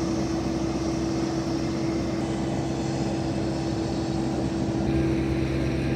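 Steady engine drone with a constant low tone over a wash of noise, from aviation equipment running on the ramp.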